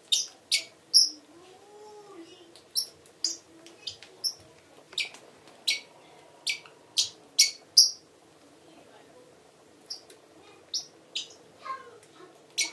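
Pet parrot chirping: a string of short, sharp, high-pitched chirps at irregular intervals, with a pause of about two seconds past the middle.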